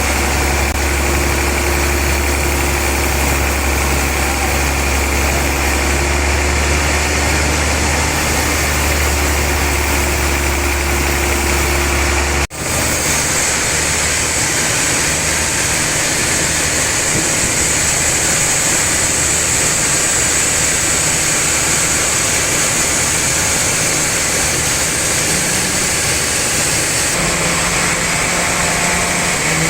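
Sawmill machinery running steadily, with a strong low hum. About twelve seconds in the sound changes abruptly: the hum drops away and a higher hiss becomes stronger.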